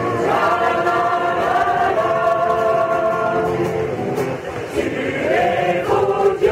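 Mixed choir of men's and women's voices singing a Northern Irish ballad in long held notes, the voices sliding up into a new note near the end.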